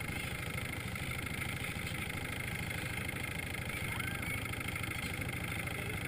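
Motorboat engine running steadily under way, a fast even low pulse. A few faint short gull calls over it.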